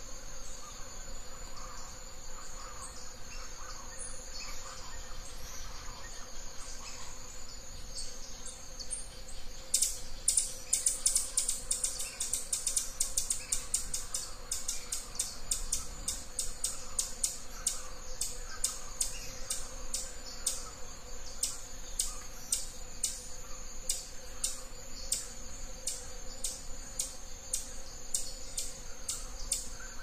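Forest insect chorus: a steady high-pitched drone with faint chirps underneath. About a third of the way in, loud sharp ticking starts, rapid at first and then settling to about two ticks a second.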